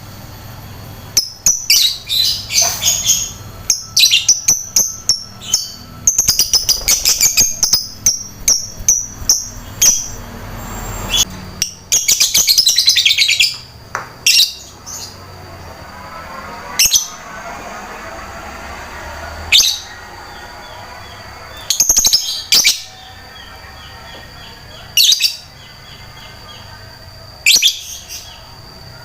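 Lovebird chirping: fast strings of shrill chirps and trills for the first half, then single sharp chirps every two to three seconds.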